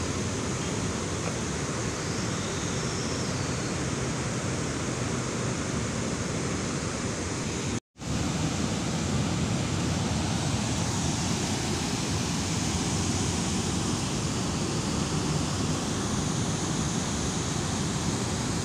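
Steady rushing noise with no distinct events, dropping out for an instant a little before halfway through.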